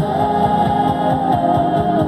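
Song raised in key and sped up: a voice holds one long note over a quick, steady percussion beat.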